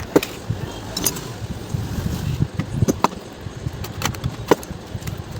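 Scattered clicks and knocks of hard plastic and metal parts as a mixer grinder's motor is fitted back into its body, about five sharp ones spread across the few seconds.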